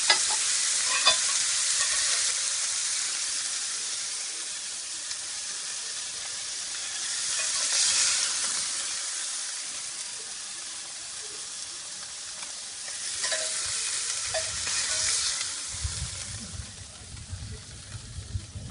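Burger patty frying over a fireplace fire: a steady sizzle that starts suddenly and swells about eight seconds in and again around thirteen to fifteen seconds in.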